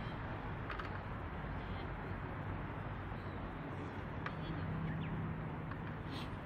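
Wood fire burning in a large CAGEDBIRD wood stove: a steady rush with a few sparse crackles. A bird calls faintly about four seconds in.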